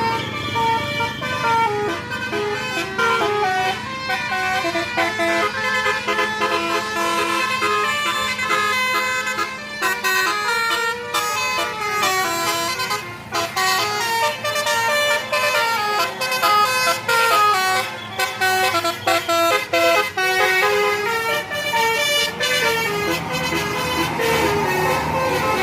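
Tour bus's 'basuri' telolet horn, a set of electric musical horns, playing a tune of quick stepping notes without a break.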